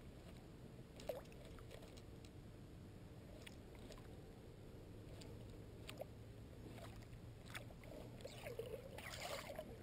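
Faint lake water lapping at a small fishing boat, with scattered light ticks as a lure is retrieved, and a short splashy patch near the end as the lure nears the boat.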